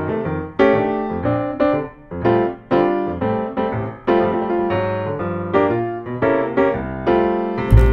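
Background music led by piano, with notes and chords struck in turn and each fading away. Right at the end a fuller-sounding passage cuts in.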